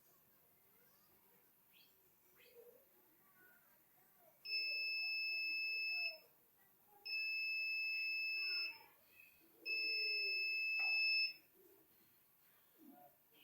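Polytron automatic washing machine's end-of-cycle buzzer: three long, steady beeps of one high tone, each about a second and a half with a short gap between, signalling that the wash programme has finished.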